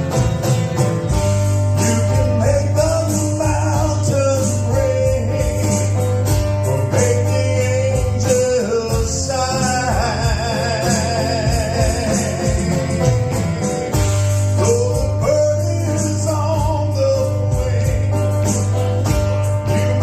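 Live band playing a country-gospel song: guitar, bass and drums, with a voice carrying the melody and a held, wavering note about halfway through.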